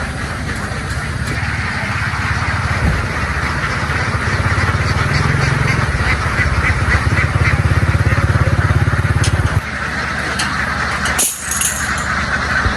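A motor vehicle's engine running close by with a pulsing low note, louder through the middle and dropping off abruptly near ten seconds in. A flock of ducks chatters underneath.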